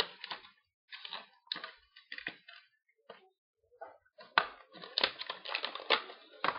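Stiff clear plastic blister packaging crinkling and crackling in irregular bursts as it is handled and pulled apart. The crackling becomes dense and continuous about four seconds in.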